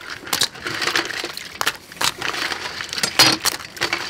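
Hard rock crab shells clicking and clattering against each other and a stainless steel mesh colander as the crabs are handled, with the loudest clatter about three seconds in.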